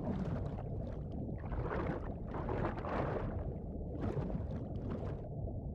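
Underwater ambience picked up by a camera's hydrophone: a steady low rush of water with several irregular hissy swishes, each about half a second to a second long.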